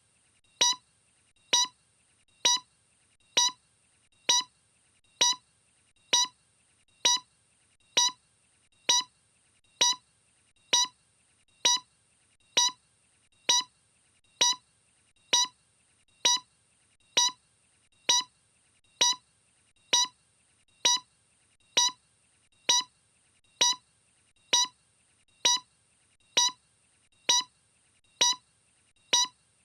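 Short electronic beep, repeating at a steady pace a little faster than once a second. Each beep is a brief clear tone with overtones, over a faint steady hiss.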